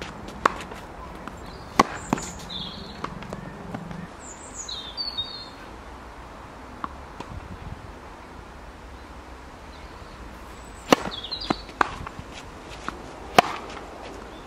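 Tennis ball struck by racquets with sharp pops and bouncing on a hard court during a rally. A few hits come near the start, then a quieter stretch, then a quick run of hits near the end, the last of them the loudest.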